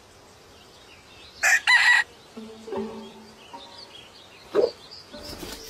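Rooster giving a short, loud crow in two parts about a second and a half in, followed by low clucks and another brief, lower call.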